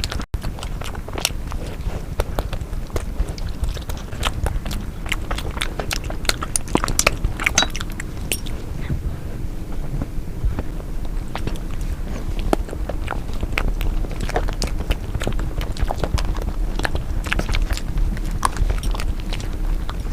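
Close-miked eating: chewing and biting, with many small sharp clicks and smacks coming irregularly throughout.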